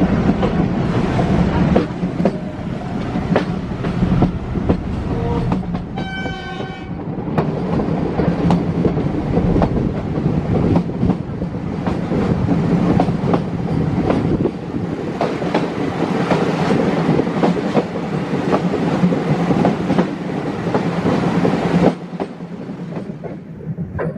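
Metre-gauge passenger train running, heard from an open coach window: a steady rumble with wheels clicking over the rail joints. About six seconds in, the diesel locomotive's horn gives one short blast of about a second; near the end the low rumble drops away.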